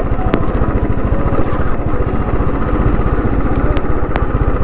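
Motorcycle engine running at low speed with an even, fast firing beat, heard close up on the bike. A few short sharp clicks are heard over it.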